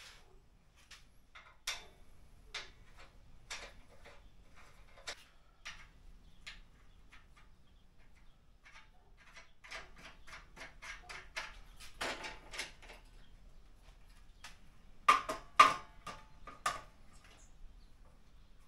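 Scattered clicks and knocks of miter saw stand parts being handled and fitted together during assembly, with a busier run of small knocks about ten seconds in and a few louder clanks with a brief ring about fifteen seconds in.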